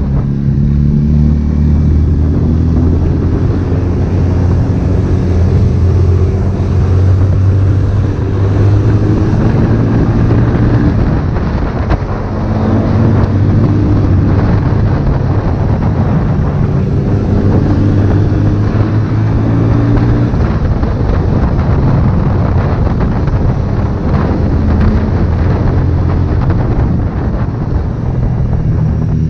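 Honda CB1000R's inline-four engine running under way, its note climbing and falling repeatedly as the bike accelerates, eases off and changes speed.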